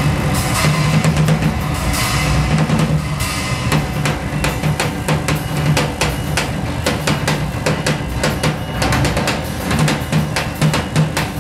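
Drum kit played live: cymbal wash over busy drumming for the first three seconds or so, then a fast, dense run of stick strokes on snare, toms and bass drum.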